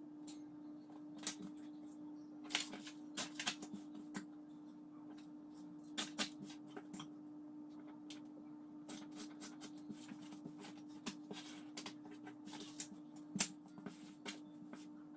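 Sheets of craft paper, a ruler and a pencil handled on a wooden tabletop: scattered rustles, taps and clicks, the sharpest near the end, over a steady low hum.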